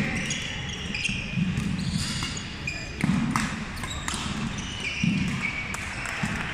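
Badminton rally: sharp racket strikes on the shuttlecock every second or so, sneakers squeaking on the wooden court floor, and the thud of players' feet landing.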